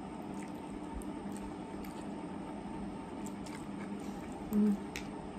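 Instant noodles being slurped and chewed, with wet mouth sounds and small clicks over a steady low hum. A brief low hum is heard about four and a half seconds in.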